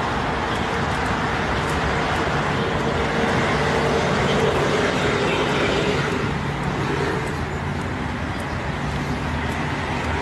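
City street traffic: a steady rush of passing cars, a little louder around the middle.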